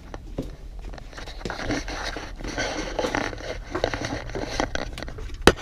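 Rustling and scraping handling noise with scattered small clicks, and a sharp click near the end.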